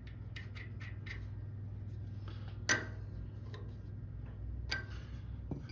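Small metal lathe running with a steady low motor hum while a nut is turned on a mandrel, with light metallic ticks and clinks and a sharp click about two and a half seconds in and another near the end.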